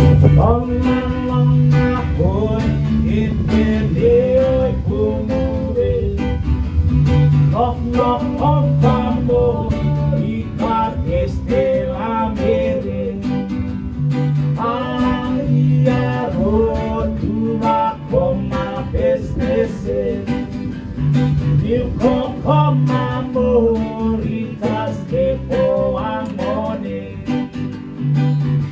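Live acoustic band music: strummed acoustic guitars over an electronic keyboard and a bass guitar line, with sung melody on top.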